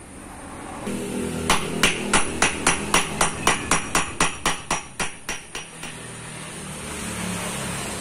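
Ball-peen hammer tapping a new bearing into the centre of a Honda Vario 125 CVT pulley, metal striking metal: about sixteen quick taps at roughly four a second, growing weaker toward the end.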